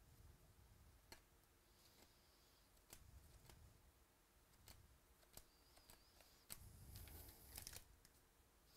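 Faint clicks and soft slides of trading cards being flipped one at a time off a hand-held stack. Near the end comes a short burst of crinkling as a foil card pack is handled.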